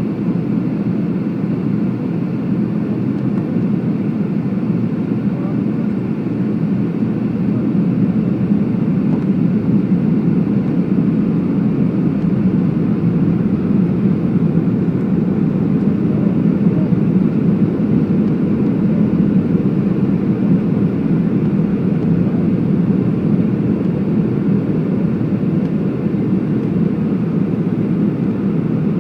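Steady cabin noise heard from a window seat by the wing of a Boeing 757-200 on its descent: an even, low roar of the jet engines and the airflow over the airframe, growing slightly louder about seven or eight seconds in.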